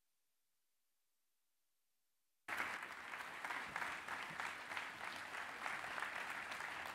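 Dead silence for about the first two and a half seconds, then a large seated audience's applause cuts back in and carries on steadily.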